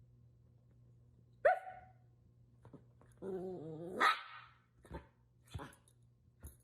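A dog barking: one sharp bark, then about a second in length of a wavering call that ends in a louder bark about four seconds in. A few faint knocks follow.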